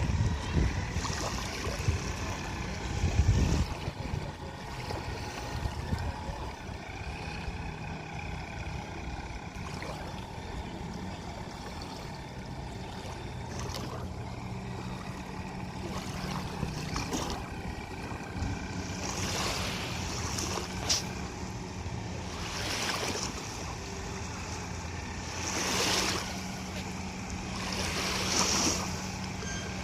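Radio-controlled boat's motor running out on the water with a steady whine whose pitch shifts as the throttle changes. Wind buffets the microphone in the first few seconds, and there are several short rushes of hissing noise in the second half.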